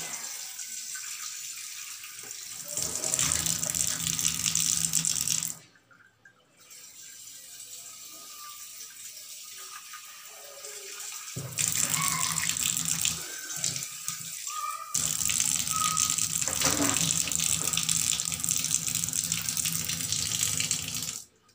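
Kitchen tap running into a stainless steel sink, water splashing off a small dish held under the stream. The flow stops briefly about six seconds in, runs quieter for a few seconds, then louder through the second half, and cuts off suddenly just before the end.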